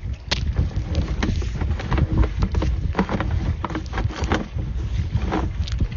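Sewer inspection camera's push cable being fed down a cast iron drain line: a steady low rumble with irregular knocks and clicks.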